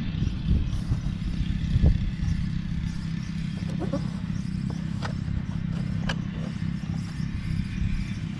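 Toro Super Recycler walk-behind lawn mower's Honda engine running steadily while mowing wet, tall grass, with a few light clicks.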